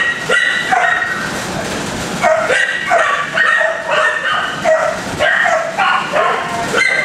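Several kennelled shelter dogs barking and yelping, one call after another without a break.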